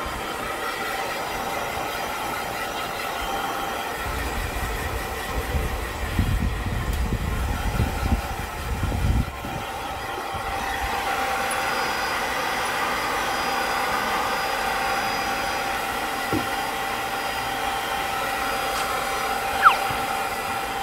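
Handheld hair dryer running steadily with a constant motor whine while blowing into a Siberian husky's coat. For a few seconds partway through there is a low rumble, and near the end there is one short falling squeak.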